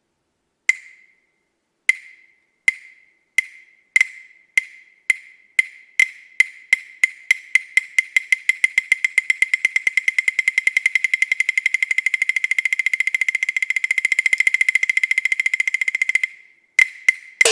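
Chinese opera percussion: a high, dry woodblock struck in single beats about a second apart that speed up steadily into a fast, even roll, then stop about sixteen seconds in. A few more strokes start up just before the end.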